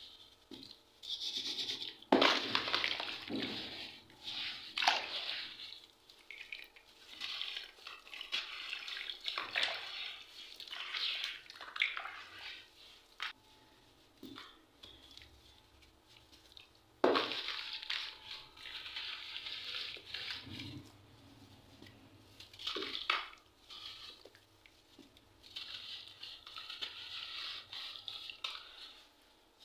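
Hands crumbling and rubbing a soft, gritty grey block into a tub of water: scraping grit, bits dropping and water splashing, with louder breaks and splashes about two seconds in and again a little past halfway.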